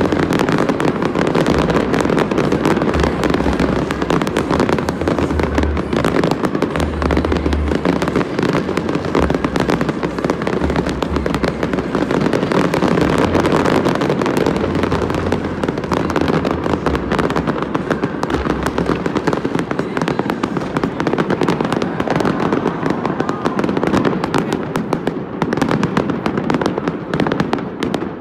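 Fireworks in a dense, continuous barrage of crackling and popping with repeated deep booms, the booms dropping away after about two-thirds of the way through and the crackle thinning near the end as the display closes.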